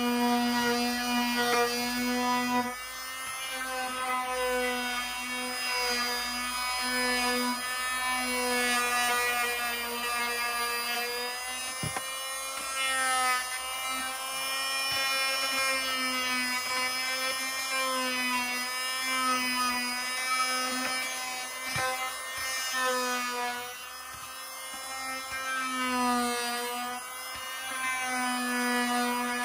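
Corded multifunction sander with a triangular sanding pad running on wood: a steady motor whine that wavers slightly in pitch as the pad is worked, with a light rasp of sandpaper underneath.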